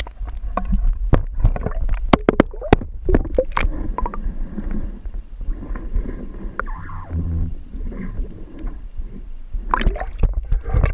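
Kayak on the water: a run of sharp knocks and clatter, thickest in the first few seconds and again near the end, over a steady low rumble and gurgling water.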